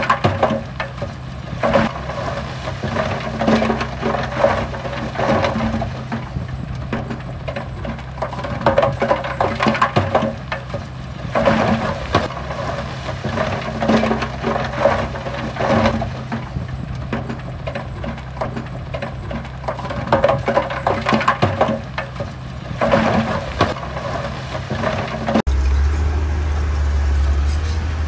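Heavy diesel earthmoving machinery running steadily, with bursts of clattering and grinding every couple of seconds as rock is dumped and pushed. About two seconds before the end, the sound cuts abruptly to a louder, deeper engine drone.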